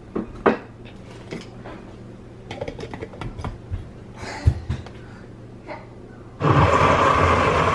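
Light clicks and knocks of a blender jar and lid being handled, then, about six seconds in, the blender motor switches on abruptly and runs loud and steady, blending fruit into a smoothie.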